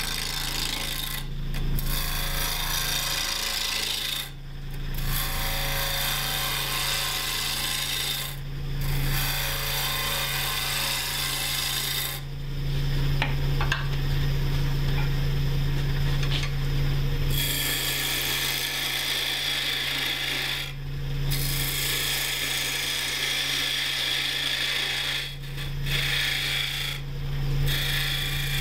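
Wood lathe running with a steady hum while turning tools cut a spinning maple burl blank, truing it up and cutting a tenon. The hiss of the cut stops briefly several times between passes and for a longer spell about midway.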